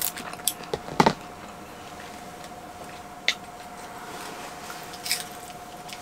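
Kitchen scissors and utensils handled at a table: a few light clicks and one sharper knock about a second in, as the scissors are worked and set down, over a steady faint hum.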